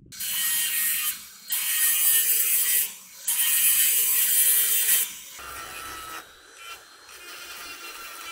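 Small angle grinder grinding steel and throwing sparks: three stretches of hard, loud grinding broken by two short gaps, about one and three seconds in. From about five seconds in it bears more lightly and runs quieter, with a steady whine.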